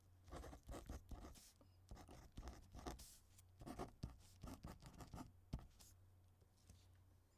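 Pen writing: quick, faint strokes in bursts that stop about three quarters of the way through.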